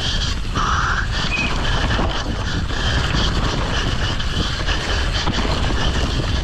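Wind roaring over the camera microphone, with a steady low rumble and quick rattles and knocks from a downhill mountain bike running over rough trail.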